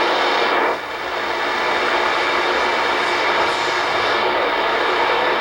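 DRM (Digital Radio Mondiale) digital shortwave broadcast heard on a receiver as a strong, steady hash-type noise with no voice in it. It dips briefly about a second in, then holds steady.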